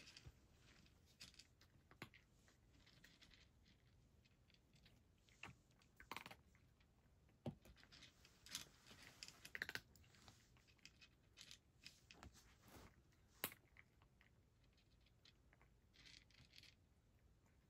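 A cat eating dry cat food from a bowl: faint, irregular crunches and small clicks, louder and closer together for a few seconds in the middle.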